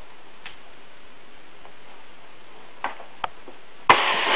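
Manual inflatable life jacket firing: a few faint clicks, then about four seconds in a sharp pop and a loud rushing hiss as the CO2 cylinder's gas fills the bladder.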